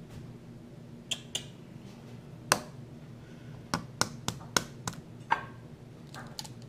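An egg tapped against the rim of a glass measuring cup to crack it: about nine sharp taps, the loudest about two and a half seconds in, then a quicker run of taps.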